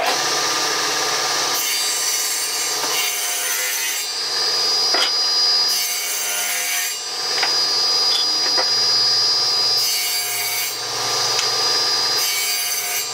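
Table saw running and cutting a wooden board into small square blocks. The steady motor and blade sound swells with a harsher, brighter cutting noise about four times as the wood is pushed through the blade.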